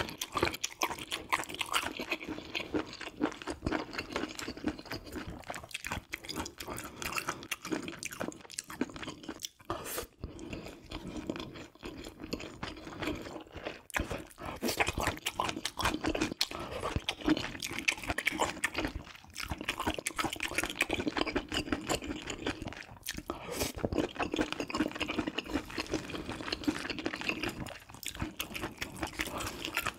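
A person chewing and eating close to the microphone: a continuous run of short, wet mouth clicks and bites with no talking.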